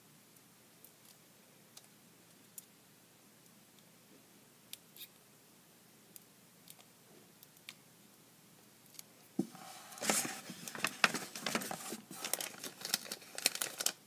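Sheets of paper being handled and creased close to the microphone: a few faint ticks, then about nine and a half seconds in a dense run of crinkling and rustling.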